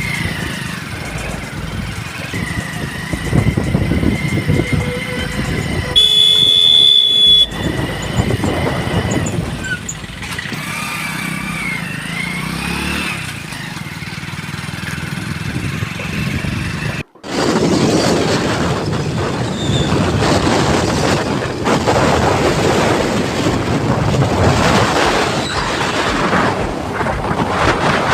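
A road vehicle running, with a vehicle horn honking once for about a second and a half some six seconds in. After a sudden break near the middle, a heavier rush of wind on the microphone over the vehicle noise.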